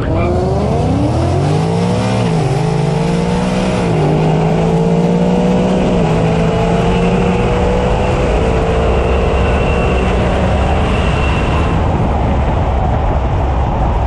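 Supercharged 5.0 Coyote V8 of a 2019 Ford F150 at full throttle in a drag-strip pass, heard from inside the truck. Its pitch climbs and drops back through four upshifts, about two seconds apart, under a high Whipple supercharger whine. About twelve seconds in the whine stops and the engine falls away as it lifts off.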